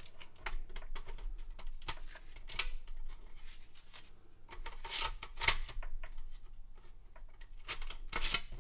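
Hands handling a floppy drive and its wrapping: scattered small clicks and knocks with rustling, the sharpest knocks about two and a half and five and a half seconds in.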